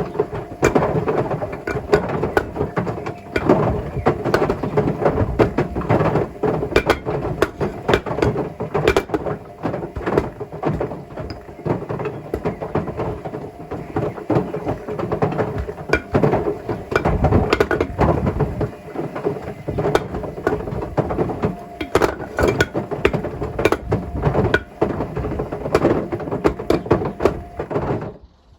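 Bricks tumbling in the drum of a Hotpoint WMFUG742 washing machine during a rinse: a continuous loud clatter of hard knocks and bangs against the drum, over the hum of the machine. It cuts off abruptly just before the end.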